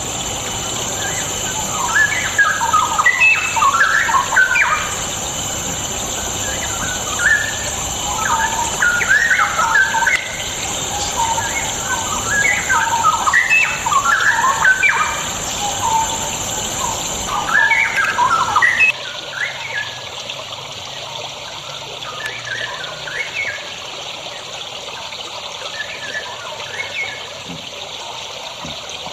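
Straw-headed bulbul (cucak rowo) singing loud, rich warbling phrases in repeated bursts, over a steady background hiss. Both drop away about two-thirds of the way through, leaving only faint, scattered notes.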